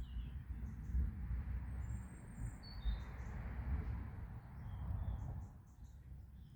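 A few short, high bird chirps over a steady low rumble and a soft hiss that fades out about five seconds in.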